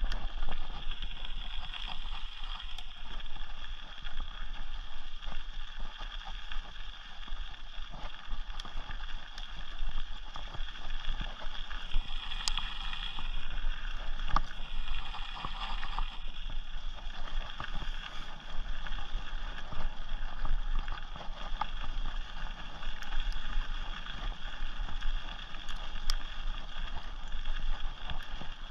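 Rocky Mountain Thunderbolt mountain bike rolling fast on a dirt and gravel forest trail: a steady rush of tyre noise and wind on the camera's microphone, with many small clicks and rattles from the bike over the ground.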